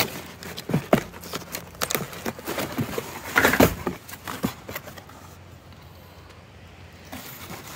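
Hands handling packaging, plastic wrap and cardboard, rustling and clicking, with a louder rustle about three and a half seconds in. The last few seconds are quieter.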